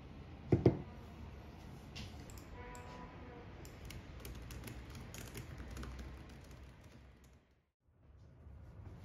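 Typing on an HP laptop keyboard: a steady run of light key clicks that fades out near the end. Two sharp knocks come about half a second in, the loudest sounds here.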